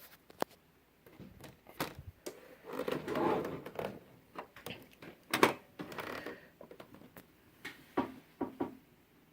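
Cricut Explore Air 2 cutting machine making irregular clicks and a rough grinding stretch, with one sharp, loud click about five and a half seconds in. It is the abnormal grinding and clicking noise of a machine fault reported to Cricut customer service.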